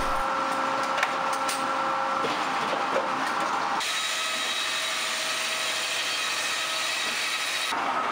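Trim saw cutting laminated veneer lumber boards to length: a steady mill saw noise that changes abruptly about four seconds in and again near the end.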